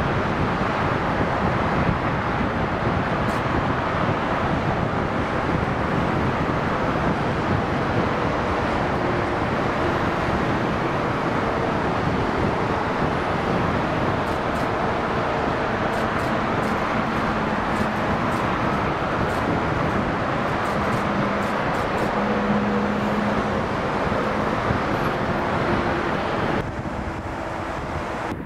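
Steady roar of heavy motorway traffic, with a faint low hum running under it in the middle. Shortly before the end it drops suddenly to a quieter, duller hum.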